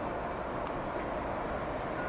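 Steady rumbling rail-yard background noise, with no distinct events.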